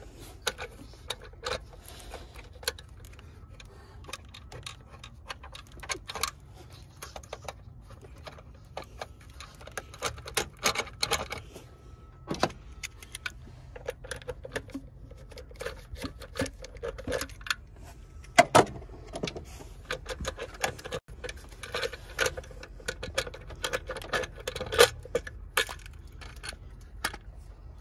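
Socket ratchet clicking and metal tools clinking in irregular bursts as the throttle body's mounting bolts are worked loose.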